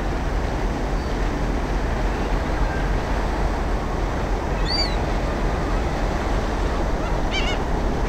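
Gulls calling over a steady loud rushing noise: one call near the middle, then a quick run of three or four calls near the end.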